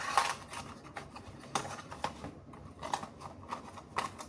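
Paperboard carton being closed and handled: a few light taps and scrapes as the box lid is folded and tucked shut, the loudest just after the start.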